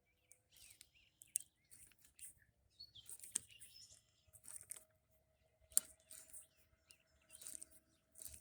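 Faint outdoor background of scattered short bird chirps, broken by a few sharp clicks and rustles.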